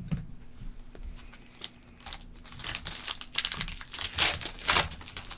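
Foil wrapper of a trading-card pack crinkling and tearing as it is opened, a run of short crackles that gets busier about two seconds in.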